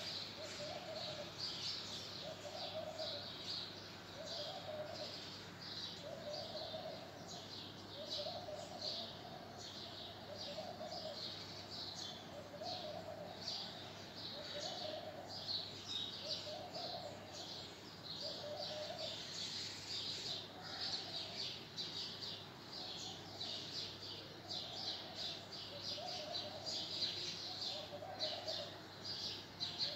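Birds calling: a low note repeated evenly, a little more than once a second, over busy high chirping.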